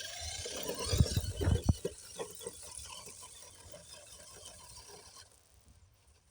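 Electric motor and gears of an RC scale truck whining while it drives, with a cluster of knocks and clatter about a second in; the whine cuts off a little after five seconds.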